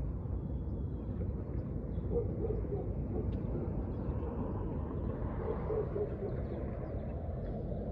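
Steady low rumble of wind buffeting the microphone, with a few faint, brief higher sounds over it.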